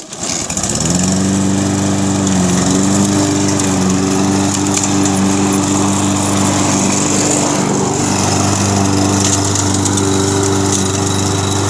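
Husqvarna push mower's Briggs & Stratton 190cc single-cylinder engine starting, coming up to speed within about a second, then running steadily at full throttle on a freshly cleaned carburetor.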